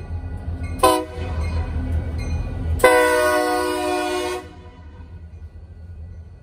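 Diesel freight locomotive air horn sounding a short blast about a second in, then a longer blast of about a second and a half, over the low rumble of the passing locomotives' diesel engines.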